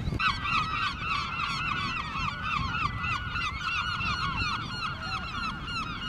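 A flock of gulls calling, many short calls overlapping in a continuous chorus that starts abruptly.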